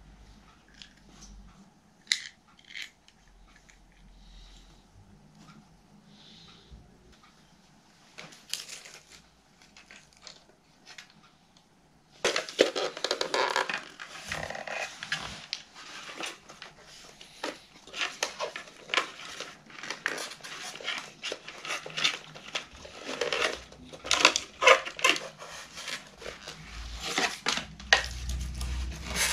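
Plastic parts of a VW T4 door mirror clicking, creaking and rattling as the assembly is worked on by hand. A few sparse clicks come at first, then constant clattering and scraping from about twelve seconds in.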